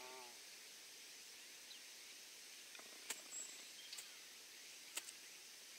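Near silence: faint outdoor ambience on open grass, with a few short sharp ticks and a brief thin high chirp in the second half.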